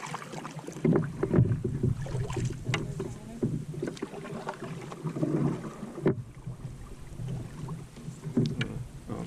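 Canoe being paddled in to shore: water splashing and sloshing around the paddles and hull, with a few sharp knocks against the boat.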